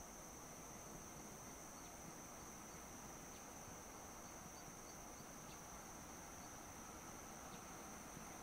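Faint, steady high-pitched insect trill over quiet outdoor ambience, with a few faint ticks.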